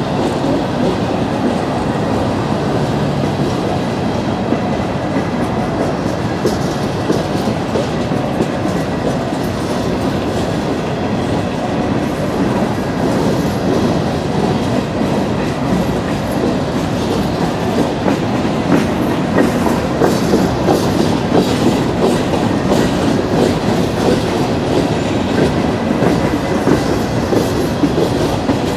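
CSX coal hopper cars rolling past on steel wheels: a steady rumble and clatter of wheels over the rail, with a faint thin high tone. The clicks get sharper and a little louder over the second half.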